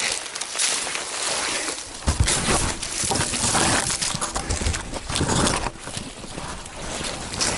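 Footsteps crunching and rustling through ground litter while climbing a steep slope, with low heavy thumps and rumble on the microphone from about two seconds in.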